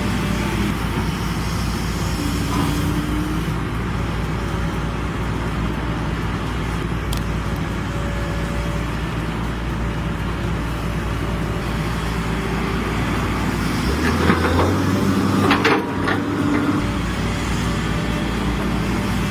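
Diesel engines of heavy machinery running steadily under load. A burst of loud knocks and clatter comes about two-thirds of the way through.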